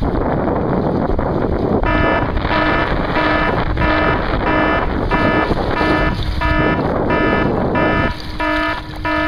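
Wind buffeting the microphone on a kite boat moving over the water. From about two seconds in, a steady electronic beep repeats about one and a half times a second.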